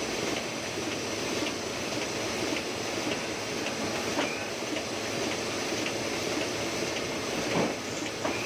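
Heidelberg GTO 52 offset printing press running, with a steady rhythmic mechanical clatter of regular clicks. A sharper, louder clack comes near the end.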